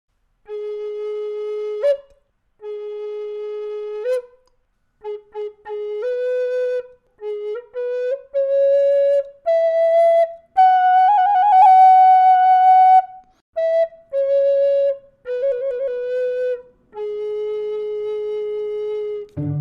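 Solo flute playing a slow melody of separate held notes. It climbs step by step to a long high note with a wavering trill about eleven seconds in, then comes back down to end on the opening note.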